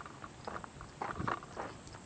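Footsteps on a gravel track, short crunches about two to a second, a little louder about a second in.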